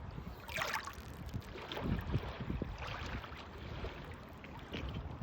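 Estuary water splashing in small irregular washes, over a low rumble of wind on the microphone.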